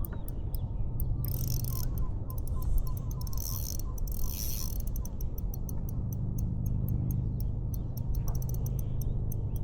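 Fishing reel being cranked to bring in a hooked fish, giving a fast run of mechanical ticks, with two stretches of hiss about one and three seconds in.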